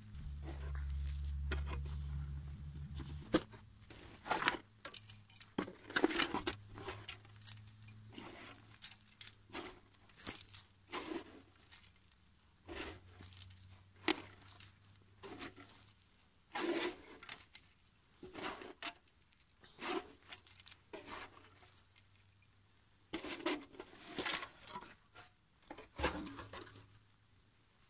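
Handfuls of dry, crumbly soil scattered by hand over a set foothold trap to hide it: short rustles every second or two. A low rumble in the first three seconds.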